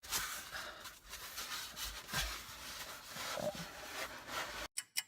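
Rustling and scraping with a few soft thumps, like someone rummaging and shifting about. Near the end it cuts off abruptly to a quick, even ticking like a clock or timer, about five ticks a second.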